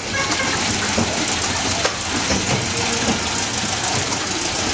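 Small tourist road train heard from aboard its open carriage: the engine running while the carriage rattles and jolts with many short knocks.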